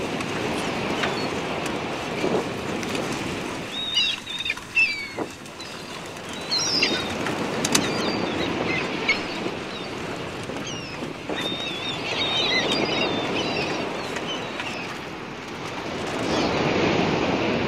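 Wind on the microphone and lapping lake water, with a few sharp metal clinks from a hand winch and pulley being worked. Short high chirps come in bunches about four seconds in and again around twelve seconds.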